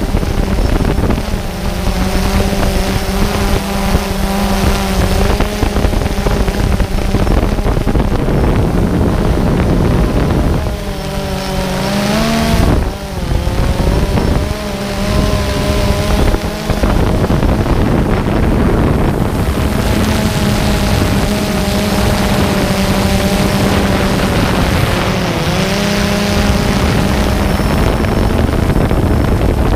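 DJI Phantom 2 quadcopter's motors and propellers buzzing steadily, heard close up from the aircraft's own camera, with wind noise. About eleven seconds in, the buzz drops in pitch and climbs back as the throttle changes, and it dips briefly again near twenty-five seconds.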